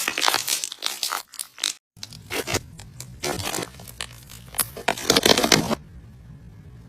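Slime being squeezed and stretched by hand, giving runs of short, noisy squishing sounds. They cut off suddenly just under two seconds in and then return sparser over a low hum, with a louder flurry about five seconds in.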